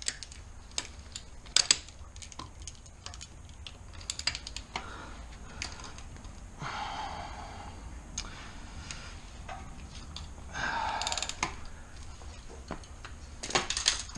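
Scattered sharp metallic clicks and clinks of hand tools and fasteners at work on a car's drivetrain, with short scraping rattles about 7 and 11 seconds in.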